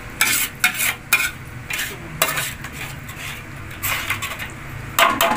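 A spatula scraping and stirring chili sambal as it fries in a metal wok, in irregular strokes with a light sizzle, and a louder clatter near the end.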